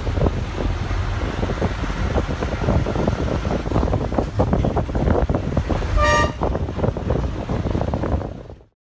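Engine rumble and body rattling inside a moving bus, with a short horn toot about six seconds in; the sound fades out near the end.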